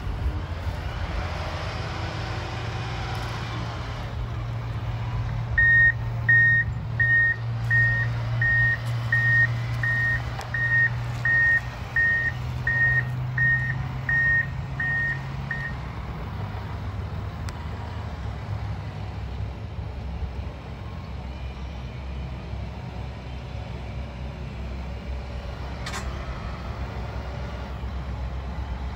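Motor grader's engine running steadily, with its reversing alarm beeping evenly, a bit more than once a second, for about ten seconds starting around six seconds in as the machine backs up.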